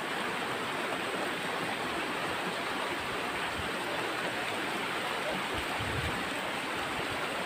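Shallow river running over rocks: a steady rushing of water, with a few faint low thuds about five to six seconds in.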